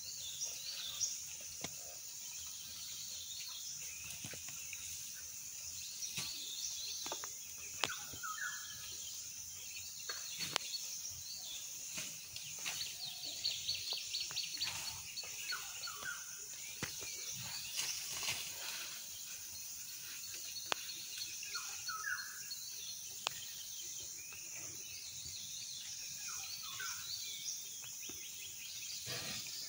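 Forest ambience: a steady high drone of insects, with a bird giving a short call about every five or six seconds and a few sharp clicks.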